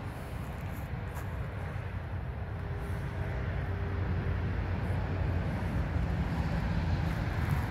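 Steady low outdoor rumble, with a faint hum in the middle.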